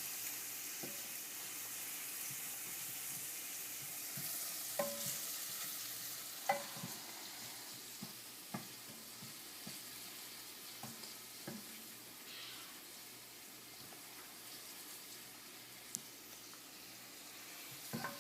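Chopped onions frying in hot oil: a steady sizzle that slowly fades, with the stirring utensil knocking and scraping against the pan now and then as they are mixed.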